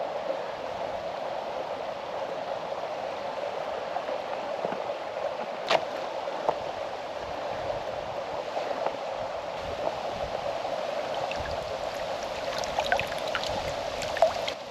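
Small, low-running creek flowing steadily over rocks, with one sharp click about six seconds in and a few faint knocks near the end.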